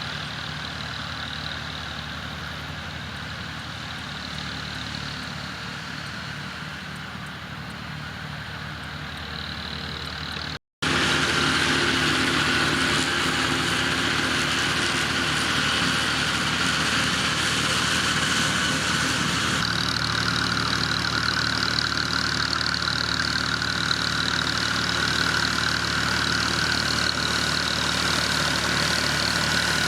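Farm tractor engine running steadily. After a break about ten seconds in it is louder, with a steady high whine over the engine note.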